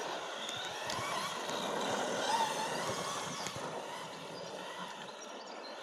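Electric RC car motor whining, its pitch rising and falling with the throttle, over a steady hiss.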